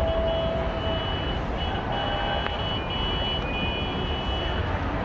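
Busy city street and crowd din. A horn is held for about a second at the start, then high steady beeping tones come and go through the middle.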